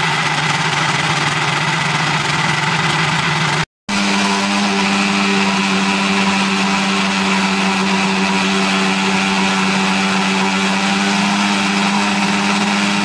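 Electric grinder (blender) motor running steadily, blending a thick green chutney paste with a little water added. It breaks off briefly about four seconds in and resumes at a higher pitch.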